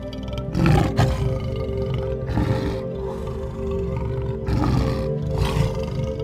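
A big cat roaring in rough bursts over background music with long held tones. The loudest roar comes about a second in, and two more come near the end.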